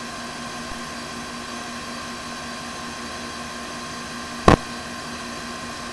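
A steady machine hum with several held tones, broken by one sharp knock about four and a half seconds in.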